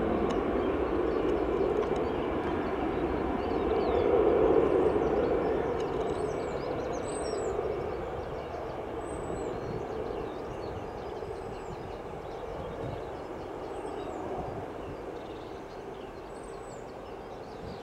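Jet airliner engines running on the runway, a steady noise that swells about four seconds in and then slowly fades as the aircraft moves away. A bird gives short high chirps every couple of seconds.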